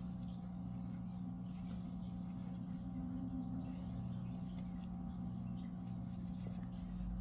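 A steady low electrical hum, with faint scratching and ticking of yarn being worked with a crochet hook.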